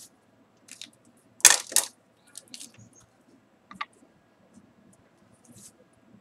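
Pens handled on a desk over paper: two sharp clicks about a second and a half in as one pen is put down and another picked up, then a few smaller taps and scratches of a pen tip writing on paper.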